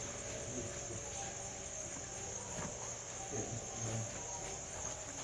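Steady, high-pitched chorus of crickets chirping continuously, with a few faint soft knocks in between.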